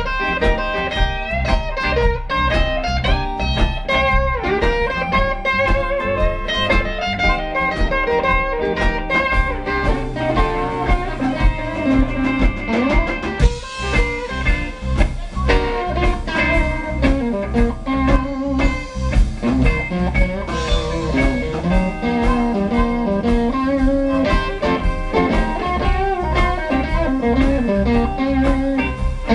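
Live blues band playing: electric guitar over a drum kit, with no break.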